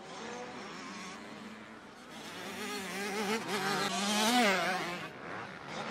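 85cc two-stroke motocross bike engine buzzing at high revs, its pitch rising and falling with the throttle. It grows louder to a peak about four seconds in, then fades.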